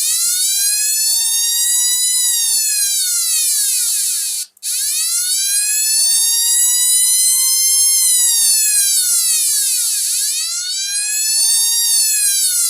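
Homemade transistor siren circuit sounding through a small speaker: a buzzy electronic tone that slowly rises and falls in pitch, wailing like an ambulance siren. It cuts out briefly about four and a half seconds in, then starts again and keeps wailing.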